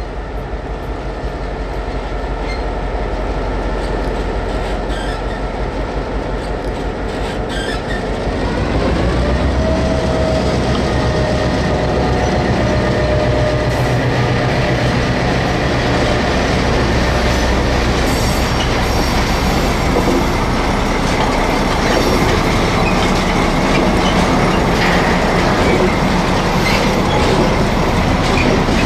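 O scale model diesel locomotive running with its freight train, with train noise and wheels clicking on the rails. About eight seconds in, its steady pitched running sound rises in pitch and grows louder, then holds steady.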